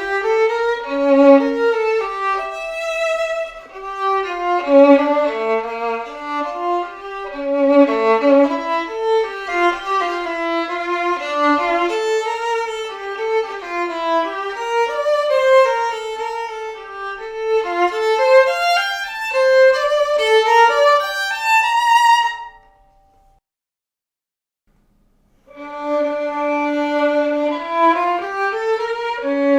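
Solo violin built on the Guarneri del Gesù model playing a melody. It stops about three quarters of the way through, and after a short silence a violin starts playing again.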